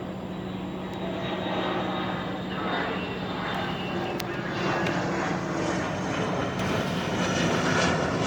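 Steady engine drone: a constant low hum under a broad rushing noise, getting a little louder about a second in.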